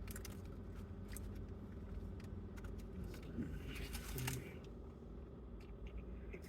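Quiet eating sounds: chewing with small clicks and rustles from handling the burger and its wrapper, over a steady low hum.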